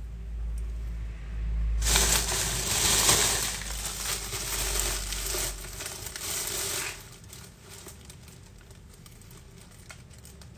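Loud crinkling rustle close to the microphone, starting about two seconds in and stopping about five seconds later.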